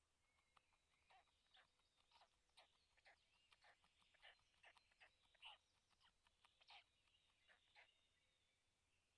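Very faint, irregular soft ticks and rustles, two or three a second, from a black stork nest as the adult bends its bill into the nest lining over two downy chicks.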